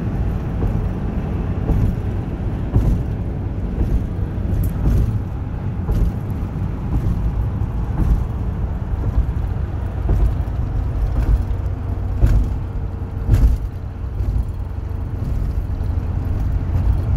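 Cab noise of a 1992 Nissan Caravan camper van at freeway speed: its TD27 turbo diesel engine running steadily under road and tyre rumble, with a few brief knocks and rattles.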